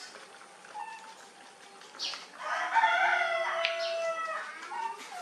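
A rooster crows once, a single pitched call of about a second and a half starting about halfway through, preceded by a short high squeak.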